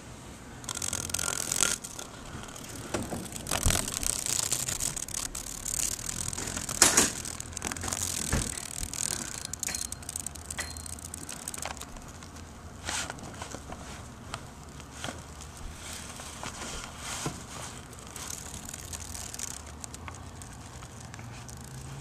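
Mesh net and its frame rustling and scraping against a pleated window blind as it is worked to free a trapped moth, with scattered clicks and a few sharper knocks in the first half.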